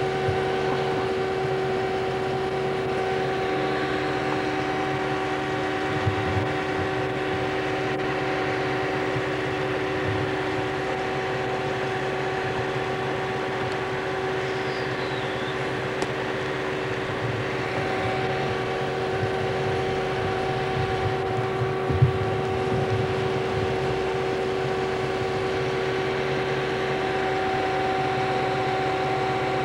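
A machine running steadily: an unbroken drone with a held hum over it, plus a couple of small knocks about six seconds in and again around twenty-two seconds.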